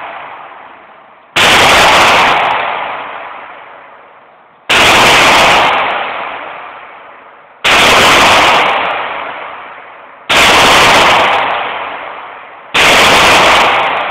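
Five single 9mm gunshots, spaced about two and a half to three seconds apart, each with a long echoing tail that fades before the next shot.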